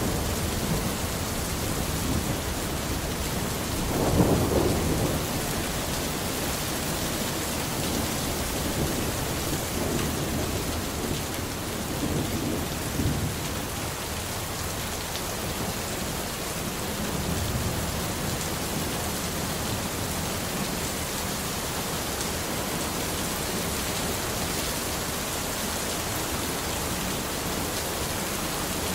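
Thunderstorm: steady rain hiss with rolling thunder, a strong low rumble about four seconds in and fainter rumbles later on.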